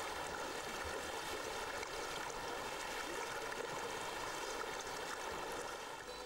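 Steady rushing and splashing of shallow river water as elephants wade across, fading a little near the end.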